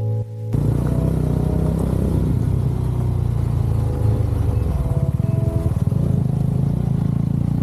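Motorcycle engine running steadily under way, heard from the rider's seat, its low note shifting a little as the bike rides on.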